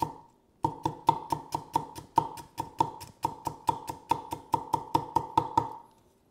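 Cleaver chopping salted mustard greens into fine shreds on a thick wooden chopping block. The chops are quick and even, about four or five a second, each with a short ring. They begin after a brief pause at the start and stop a little before the end.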